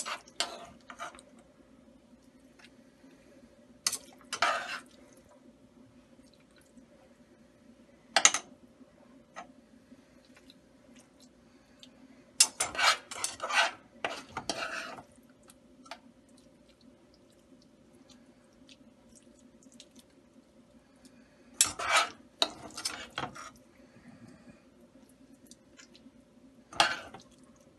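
Hands stuffing a raw whole chicken held in a metal pot: short bursts of scraping, rustling and knocks against the pot come in about six clusters, with the longest stretch near the middle, over a faint steady hum.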